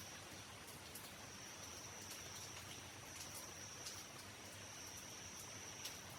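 Rain dripping, with scattered sharp drip ticks, under a steady high-pitched insect trill that breaks off briefly about half a second in.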